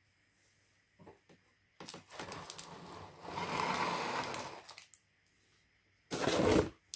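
Handling noise from a diecast model car and its packaging: a few light clicks, then about three seconds of rustling and scraping, and a short louder knock or rustle near the end.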